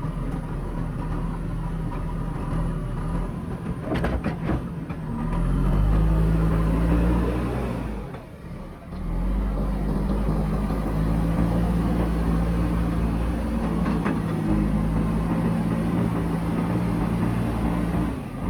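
JCB backhoe loader's diesel engine working steadily, with a few knocks about four seconds in. It runs louder for a moment around six seconds in, drops off briefly near the middle, then picks up and holds steady.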